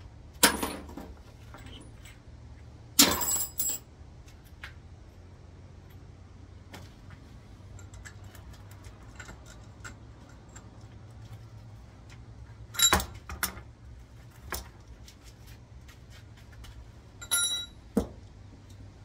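Metal parts and tools clinking and clattering at intervals: several sharp metallic knocks with a brief ring, the loudest about three seconds in, over a steady low hum.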